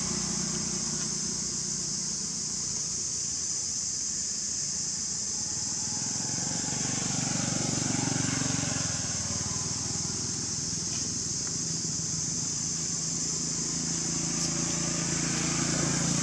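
Steady outdoor background: a constant high hiss with a low hum like distant traffic underneath.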